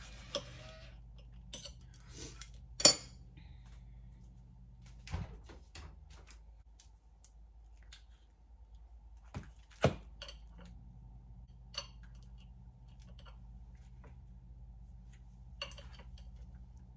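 Scattered clinks and knocks of a knife, plate and hummus dish being handled while toast is topped, the loudest about three seconds in and again about ten seconds in, over a faint steady low hum.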